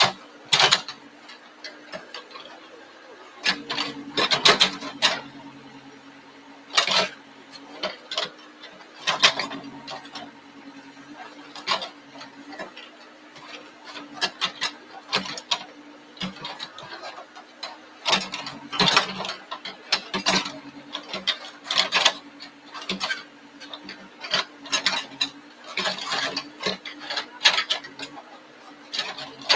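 Backhoe's diesel engine running with a steady hum while its bucket drags and drops soil back into a grave. Repeated sharp clatters and rattles come every second or two from the bucket and the clods and stones it moves.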